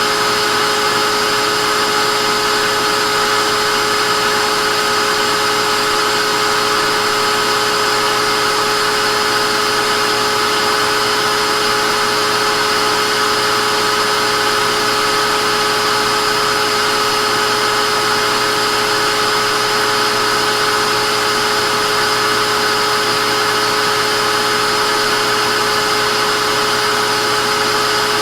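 Vacuum cleaner running steadily, a constant rushing hiss with a steady motor whine over it.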